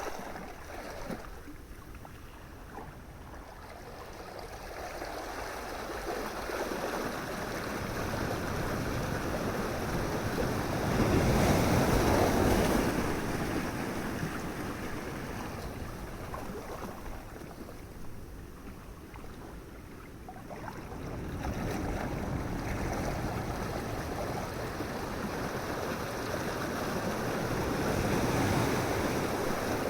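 Ocean surf: waves breaking and washing ashore in slow swells, one peaking about a third of the way in and another building near the end, with a lull between.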